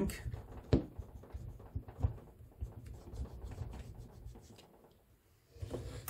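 Small wire cutters snipping and scraping through heat-shrink tubing over a cable's wires, with sharp clicks about three-quarters of a second and two seconds in, amid rustling as the cable is handled.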